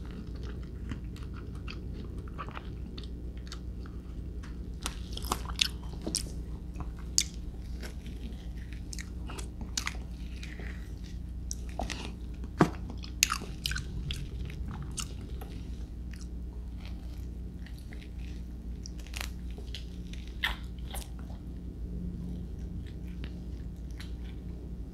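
Close-miked mouth sounds of someone chewing soft star apple flesh: scattered wet clicks and smacks, thickest through the middle.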